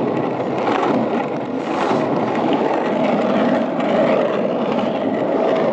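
Skateboard wheels, 63 mm Landyachtz Hawgs urethane wheels on a Landyachtz Dodger, rolling steadily over rough asphalt with a continuous rolling noise.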